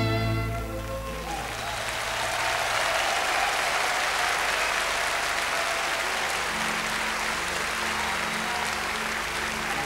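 Large concert audience applauding steadily as the band's last notes die away about a second in. A low held note from the band comes in under the applause about two-thirds through.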